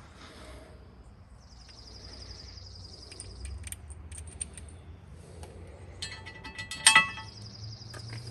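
Small metal parts of a zinc anode and its screws clinking and jingling in the hands. The loudest moment is a quick burst of ringing metal clinks about seven seconds in. A high, rapid trill sounds twice in the background.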